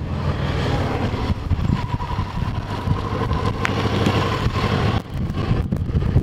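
Motorcycle engine running steadily with a low, even note.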